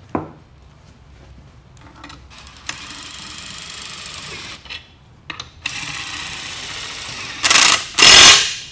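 A cordless power driver spins a greased threaded rod that spreads two steel plates inside a tire. It runs in two steady stretches, then in two much louder short runs near the end as the rod is driven under load. A brief knock comes at the very start.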